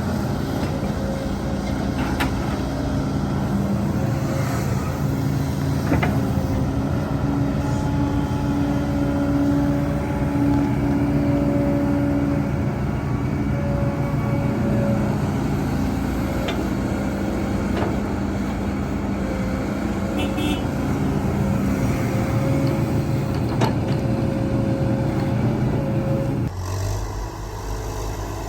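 Heavy diesel earthmoving machinery (excavator and dump trucks) running steadily: a continuous engine drone with a held tone over it and a few sharp knocks. The sound drops and changes abruptly near the end.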